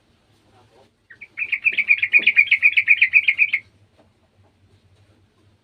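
Yellow-vented bulbul (trucukan) giving a fast chattering run of notes, about eight a second for some two seconds, after a single short opening note.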